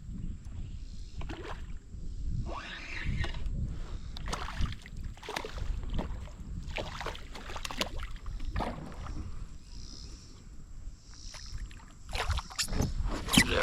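Kayak on a river: water moving against the hull with irregular small knocks and clicks, which get louder and busier near the end.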